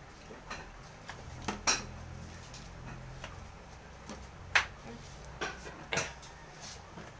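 Eating utensils clinking against a plate while eating: a series of separate sharp clinks a second or so apart, the loudest about four and a half seconds in.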